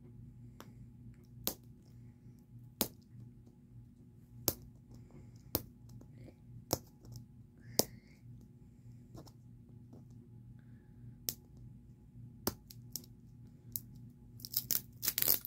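Sharp, separate clicks and crinkles of a plastic toy capsule ball being handled and picked open, coming every second or so, with a quick run of clicks near the end.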